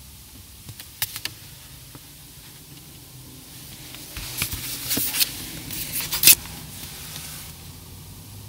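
Crinkling and crackling of a plastic bag of in-shell peanuts being handled, irregular for a few seconds from about halfway through, with one sharpest crack near the end, over a steady amplified hiss. A few sharp clicks come about a second in.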